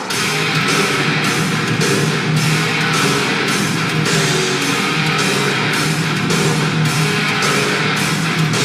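Loud heavy rock music with electric guitar and a steady, fast drum beat.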